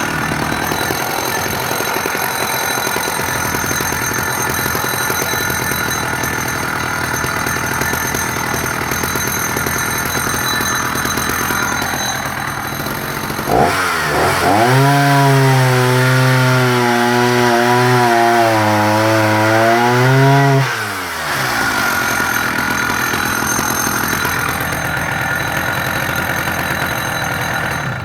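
Husqvarna 380S two-stroke chainsaw running at high revs and cutting through a log with a freshly sharpened semi-chisel chain. About halfway through, the engine note sweeps up and then runs as a clear, wavering tone for several seconds before the noisier cutting sound returns. The chain cuts noticeably quicker with its reground 75-degree head angle and opened-out gullets.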